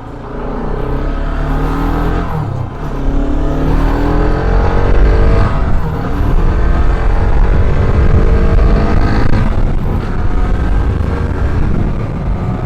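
Bajaj Pulsar RS 200 motorcycle engine revving as the bike accelerates, its pitch rising again and again through the gears, over steady low wind rumble.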